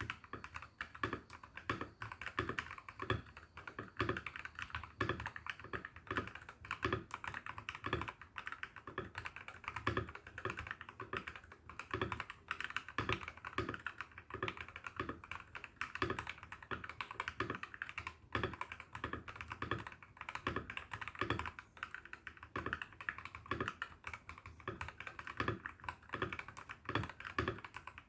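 Continuous typing on a TM680 mechanical keyboard with lubed Gateron Ink Black linear switches and XDA-profile keycaps, set straight on the desk without a deskmat. A dense, unbroken stream of keystrokes, with deeper knocks from some presses mixed in.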